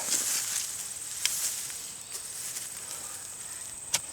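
Garden soil and plants rustling and scraping as dirt is handled and dug by hand, with two sharp clicks, one about a second in and one near the end.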